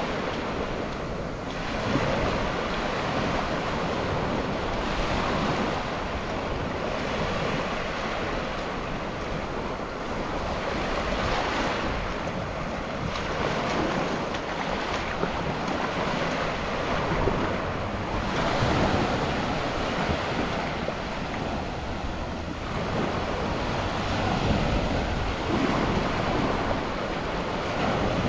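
Sea waves washing onto a sandy beach, the surf swelling and easing every several seconds, with wind buffeting the microphone.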